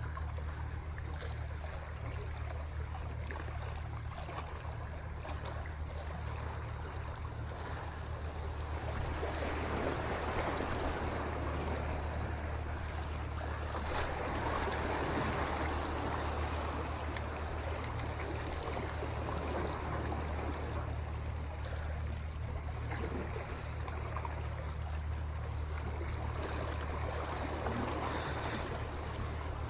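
Small sea waves washing and splashing against the concrete blocks of a seawall, swelling and easing in surges, over a steady low rumble.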